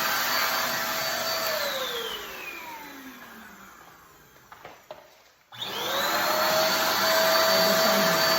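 Sowtech cyclone vacuum cleaner running with a steady whine. About a second and a half in it is switched off and its pitch falls as the motor spins down to near quiet. After two small clicks it is switched back on, the whine rising quickly and settling steady again.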